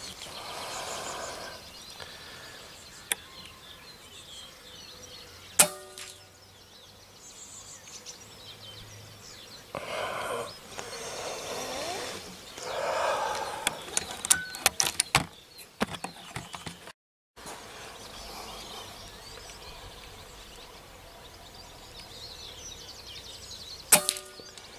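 Two air rifle shots about 18 seconds apart, each a sharp crack with a brief ring after it. Between them come rustling and a quick run of small clicks about two-thirds of the way through.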